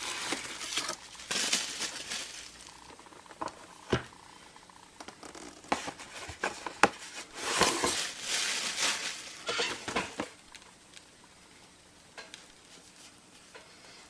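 Cardboard shipping box being worked open by hand after its tear strip failed: several bursts of tearing and rustling with a few sharp clicks, going quiet after about ten seconds.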